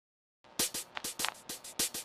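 Background music with a fast electronic drum-machine beat, starting suddenly about half a second in after dead silence.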